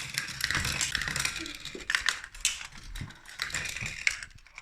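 Marbles clattering along a plastic Gravitrax track: a dense run of quick, sharp clicks and clacks that thins out and fades near the end.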